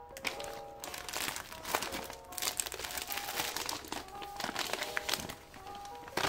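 Plastic packaging crinkling and rustling as a poly mailer bag is handled and a plastic kit pouch and bagged stuffing are pulled out of it. Light background music with short plinking notes plays underneath.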